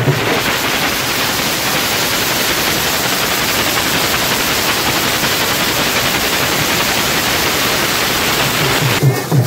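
Loud, steady hiss of static-like noise, even across all pitches, that starts abruptly and cuts off suddenly about nine seconds in.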